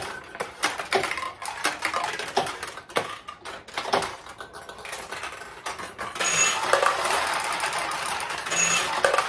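Steel balls launched through a 1972 Nishijin Model A pachinko machine, clicking and rattling off the playfield pins. About six seconds in, a win: a louder, dense clatter of payout balls pouring into the tray, with a short high ring twice.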